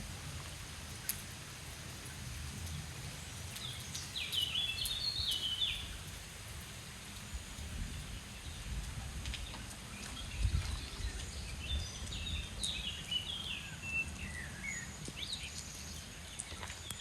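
A songbird singing two bursts of quick, stepping high-pitched phrases over a steady low rumble that swells briefly near the middle.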